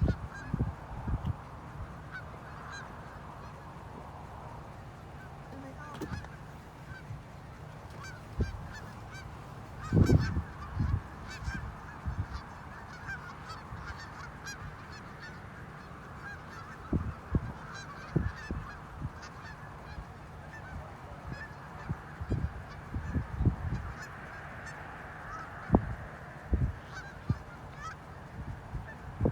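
A flock of Canada geese honking, many short overlapping calls running on without a break. Scattered brief low thumps stand out above them, the loudest about a third of the way in and again near the end.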